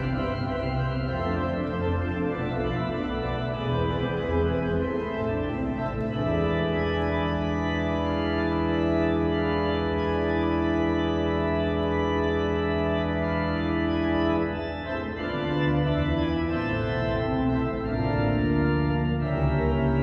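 Organ playing sustained chords. It moves through changing chords, holds one long full chord for several seconds in the middle, then shifts to new chords near the end.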